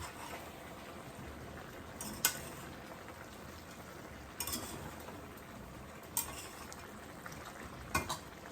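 A spoon stirring a bubbling pot of curry chicken and potatoes, with a steady simmering hiss and a few sharp knocks of the spoon against the pot.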